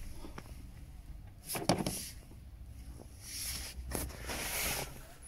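Quiet background inside a car: a low steady rumble, a couple of faint knocks, and a soft hiss rising and fading in the second half.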